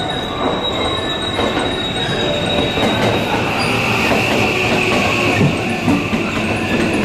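JR West electric commuter train pulling into the platform and slowing, with wheel and running noise and a high steady squeal that drops to a lower pitch about three seconds in.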